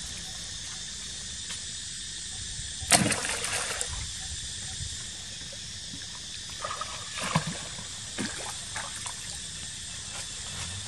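Pond water splashing and sloshing around swimming macaques. There is one sharp, loud splash about three seconds in and a few smaller splashes later, over a steady outdoor hiss.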